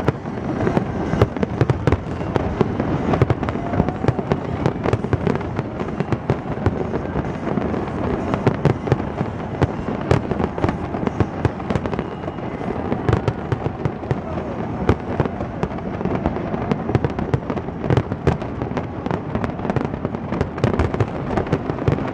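Fireworks display in its closing minutes: a dense, unbroken run of bangs and crackles in quick succession.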